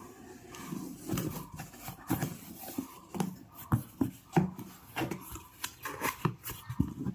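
Irregular knocks, taps and rubbing, several a second, like objects being handled.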